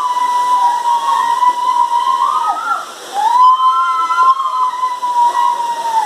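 Two long, high whistle-like notes, each sliding up into a steady pitch, held for close to three seconds, and bending away at the end, with a short break between them. Under them runs the steady rush of a small waterfall pouring into a pool.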